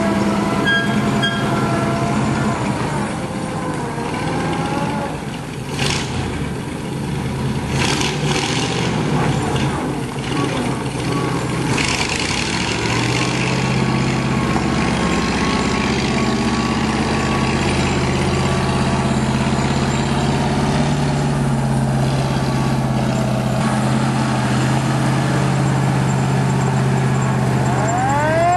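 1941 Ford fire truck's engine running as it drives along, the engine note settling into a steady, stronger drone about halfway through. Right at the end a siren starts to wind up, rising in pitch.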